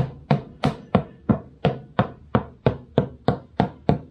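A tractor tyre being knocked in a steady, even rhythm, about three sharp knocks a second, to tell by the sound whether it is filled with water ballast.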